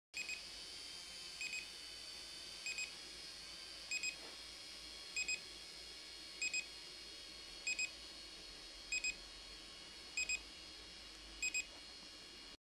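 Short electronic double beeps repeating about every 1.25 seconds over a steady hiss, like a drone's warning beeper picked up through the SJRC S20W's camera microphone.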